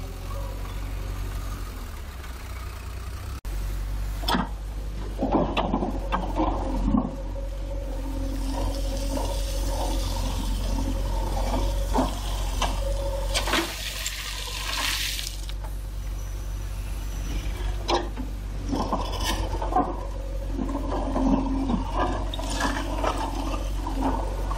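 JCB 3DX backhoe loader's diesel engine running steadily under load with a hydraulic whine, while its bucket scrapes into a pile of soil and stones, with repeated clattering and knocking of rocks. About midway comes a rush of falling soil and gravel.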